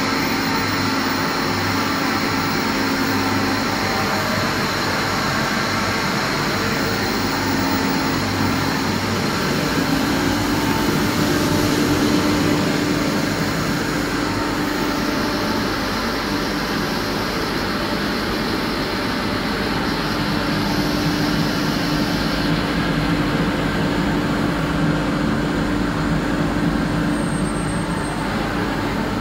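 Kaeser ASK 35 rotary screw air compressor running, a steady mechanical hum with a few constant tones.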